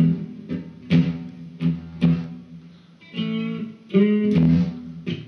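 Electric guitar playing a slow blues riff: a string of sharply plucked notes, some left to ring for about a second.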